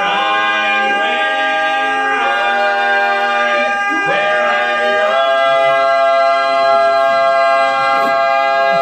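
Barbershop quartet of four men singing a cappella in close harmony: a few quick chord changes, then one long held chord from about five seconds in.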